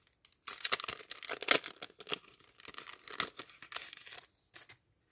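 Clear plastic packaging bag crinkling and crackling as a pack of stickers is handled and drawn out of it, a dense run of crackles lasting about four seconds, followed by a couple of faint ticks.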